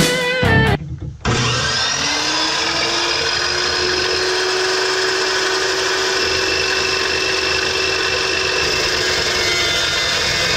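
Evolution carbide-blade dry-cut metal chop saw starting about a second in, its motor whining up to speed and then running steadily and loud. Background music plays briefly before it starts.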